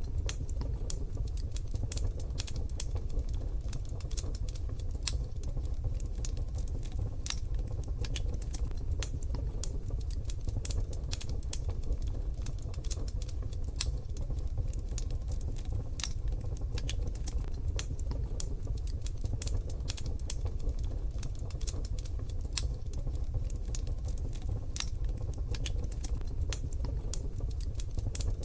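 Wood fire in a wood-burning stove crackling: frequent irregular sharp snaps and pops over a steady low rumble of the burning fire.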